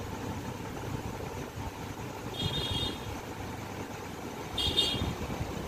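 Steady low mechanical rumble like an idling engine, with two brief high-pitched sounds, one about halfway through and one near the end.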